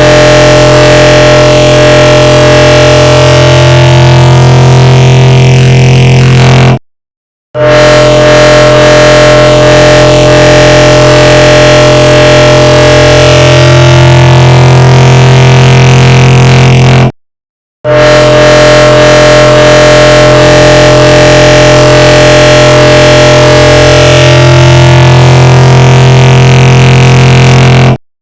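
A huge stack of overlapping 'bruh' sound-effect clips merged into one loud, distorted, droning wall of sound. It cuts out to silence for under a second twice, about ten seconds apart, then starts again.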